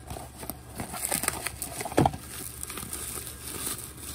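Plastic bubble wrap and packaging crinkling and rustling as a blind box is handled open and the wrapped figure pulled out, with one louder knock about two seconds in.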